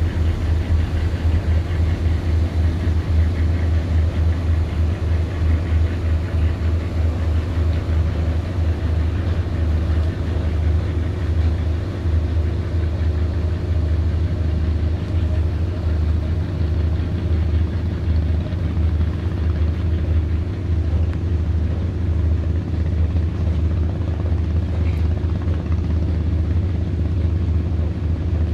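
Steady low rumble of a boat engine running, constant in level throughout.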